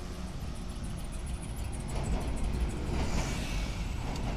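Road traffic with a coach and a tram passing close by: a steady low rumble of engines and tyres, with a few light clicks near the end.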